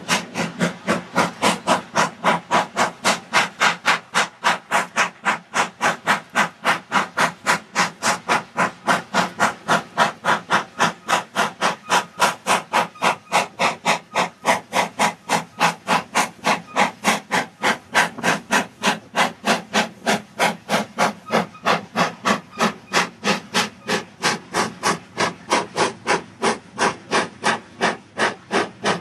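Avonside 0-6-0 saddle-tank steam locomotive working hard with a heavy freight train, its exhaust beating sharply and evenly at a little over three beats a second. The beats fade slightly near the end as it draws away.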